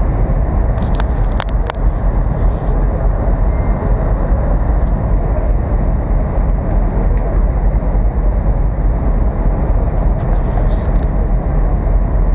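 Steady low rumble of a river ferry under way: engine drone mixed with wind on the microphone, with a few faint clicks about a second in.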